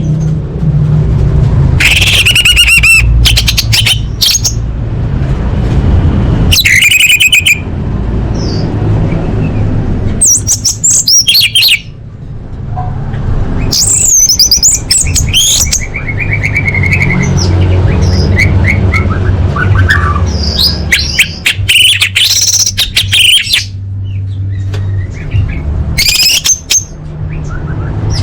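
Orange-headed thrush (anis merah) singing: bursts of quick, varied high notes and trills with short pauses between, over a steady low rumble.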